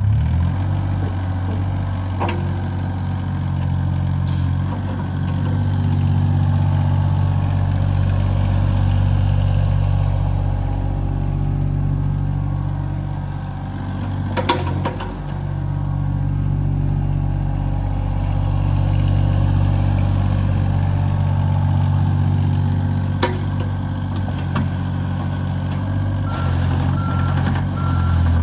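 John Deere 26G mini excavator's diesel engine running, its pitch rising and falling as the hydraulics work the boom, with a few sharp clanks. Near the end the travel alarm starts beeping.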